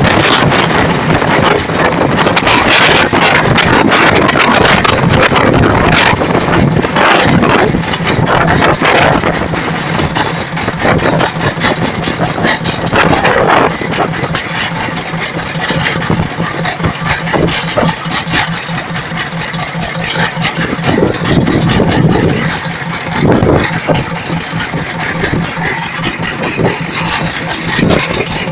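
Boat engine running steadily, a low hum under loud rushing noise.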